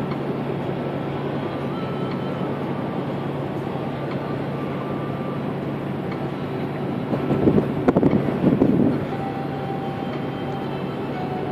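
Steady engine drone and running noise heard from aboard a moving vehicle, with a steady low hum underneath. About seven seconds in, a louder rough stretch lasts about two seconds.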